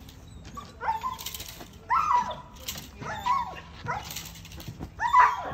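A puppy barking at a decoy during prey drive work: short, high-pitched barks about once a second, each rising then falling in pitch.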